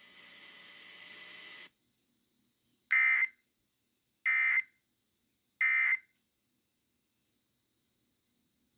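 Emergency Alert System end-of-message signal: three short, identical bursts of digital data screech about a second and a half apart, the SAME 'NNNN' code that marks the end of an alert. They are preceded by a faint hiss that cuts off just under two seconds in.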